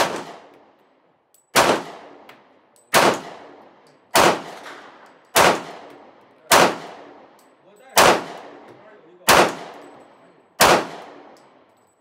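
HK USP semi-automatic pistol in .40 S&W fired nine times at a steady pace, about one shot every second and a quarter, each sharp report trailing off in a short echo.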